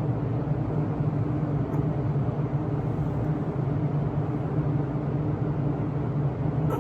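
Electric fan running steadily, a constant low hum with an even whoosh of moving air.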